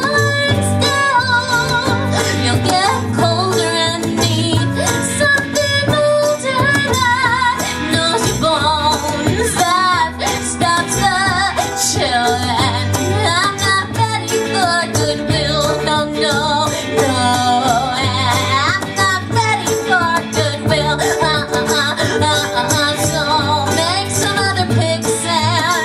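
Live band playing a folk-pop song: a female lead voice singing with vibrato over ukulele, guitar, bass and percussion.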